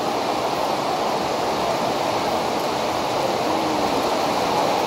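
Fast-flowing floodwater rushing down a street, a steady unbroken wash of water noise.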